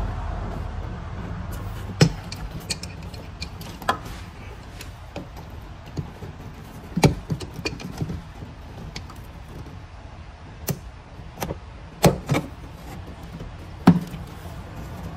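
Hand work on the van's heater hoses and spring clamps: several sharp clicks and knocks at irregular intervals, the loudest near the end, over a steady low hum.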